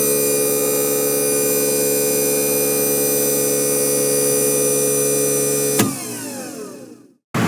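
A steady machine-like hum made of many mixed tones. About six seconds in it clicks off and winds down, falling in pitch and fading out, as if powering down.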